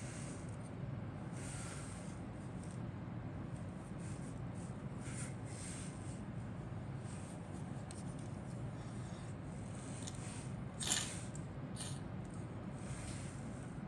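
Faint rustling and rubbing of plastic model-kit sprues handled in the fingers, with one sharper plastic click about eleven seconds in, over a steady low hum.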